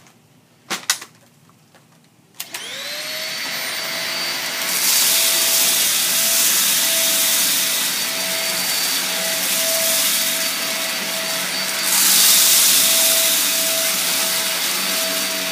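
Dyson DC50 Animal upright ball vacuum cleaner: two short clicks, then about two and a half seconds in the motor starts and spins up with a rising whine. It settles into a steady high whine with loud suction hiss as it is pushed over carpet strewn with cat litter, rice and sand. The hiss swells louder twice.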